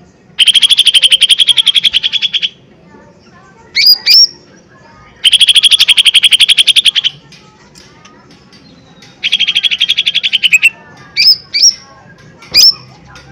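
Cucak ijo mini (a small green leafbird) singing loudly. It gives three long, fast rattling trills of about a second and a half to two seconds each, with short sharp rising whistled notes between them.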